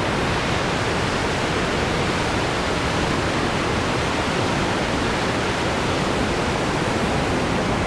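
Large waterfall in high flood flow, a loud, steady rush of falling water heard close up.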